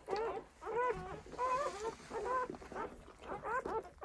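A newborn Belgian Malinois puppy crying in a string of short, high squeals that rise and fall, several a second.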